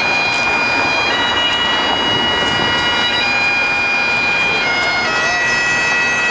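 Bagpipes playing a slow tune in long held notes that step to a new pitch every second or two, over a steady drone.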